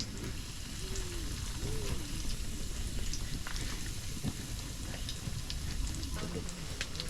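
Battered crappie fillets frying in oil in a cast iron pan: a steady sizzle with scattered small pops and crackles.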